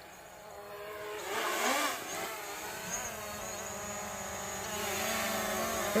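Quadcopter drone's propellers whining, the pitch wavering and shifting as it manoeuvres, growing steadily louder as it comes closer.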